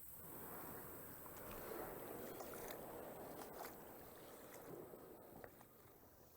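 Faint swishing and splashing of water as a kayak is moved through shallow creek water, swelling and then fading, with a few light knocks.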